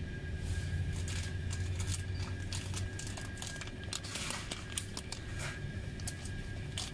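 Plastic snack and coffee packets crinkling and rustling as they are picked up and handled, the crackle densest about four seconds in, over a low steady hum.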